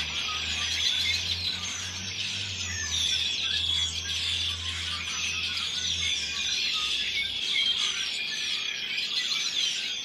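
A large flock of songbirds calling all at once in a dense, noisy chorus of overlapping chirps and many short falling whistles. A low hum runs underneath and stops about seven and a half seconds in.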